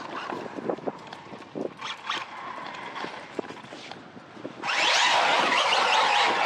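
Scattered light clicks and scuffs, then about two-thirds of the way through the brushless motor of a Team Corally Syncro 2WD RC buggy suddenly comes in loud. Its whine rises and falls in pitch under hard throttle, over a steady rush of tyre and dirt noise.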